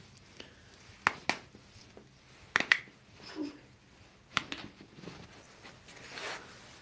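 A few sharp clicks amid quiet handling in a small room: two about a second in, a close pair about two and a half seconds in and another about four seconds in, with a soft breath-like hiss near the end.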